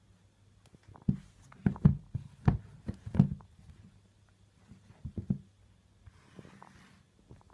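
Reebok trainers being handled and knocked down onto a wooden floor: a quick series of dull knocks in the first few seconds, a few softer ones a little later, and a brief faint rustle near the end.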